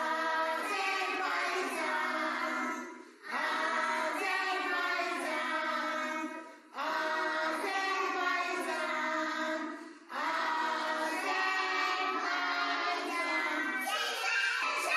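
A group of young children singing a song together, in phrases of about three seconds with short breaks between them.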